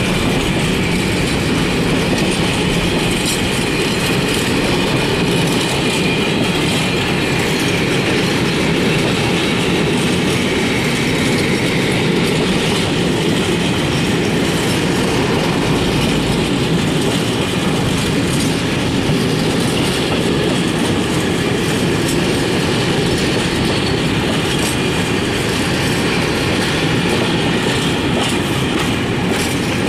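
Freight train wagons rolling steadily past on the track at close range, a continuous loud rolling noise of wheels on rail.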